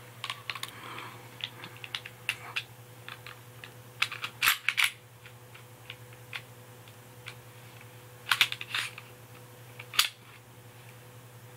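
Irregular clicks and clacks of an airsoft pistol's parts being handled as the slide and recoil spring are fitted back onto the frame, with a few louder knocks about four and a half, eight and ten seconds in.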